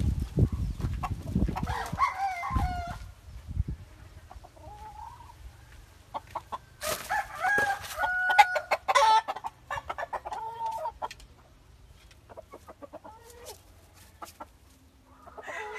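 Domestic rooster crowing, once about two seconds in and again, louder and longer, around seven seconds in, with hens clucking in between. Low thumps of handling noise come at the start.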